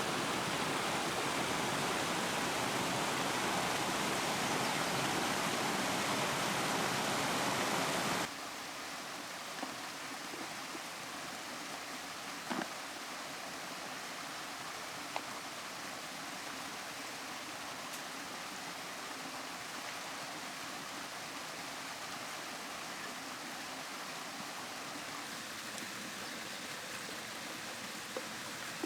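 Steady rushing of river water, which drops suddenly to a quieter, softer flow about eight seconds in. A few faint short clicks are heard during the quieter part.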